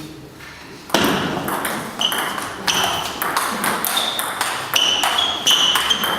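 An irregular series of sharp knocks, each followed by a brief high ring, starting about a second in and coming every half second to a second.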